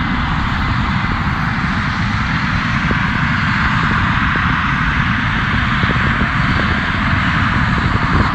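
English Electric Lightning's twin Rolls-Royce Avon turbojets running steadily at taxi power as the jet rolls along the runway.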